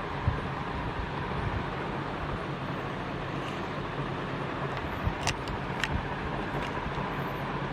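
CMC industrial ceiling fan running: a steady rush of air with a faint steady hum, and two sharp clicks about five seconds in.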